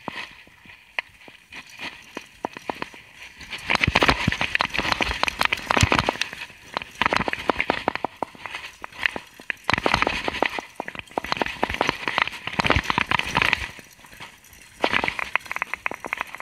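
Mountain bike riding fast down a rough dirt trail: dense clatter of the bike and camera mount rattling and tyres running over dirt and roots, quieter at first and coming in loud clattering bursts from about four seconds in.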